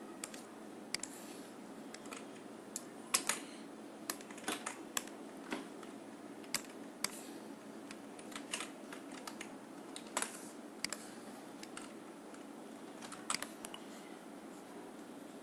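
Irregular, scattered clicks and taps of computer input, like keys and a mouse button being pressed while editing, a few at a time with brief pauses. The loudest clusters come about 3 seconds and 10 seconds in, over a faint steady room hum.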